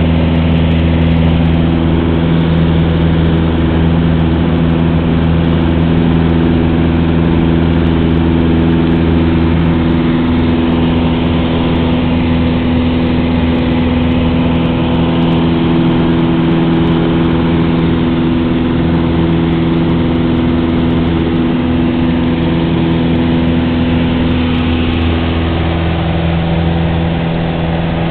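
Light aircraft's piston engine and propeller running steadily with an even drone, its pitch shifting slightly near the end.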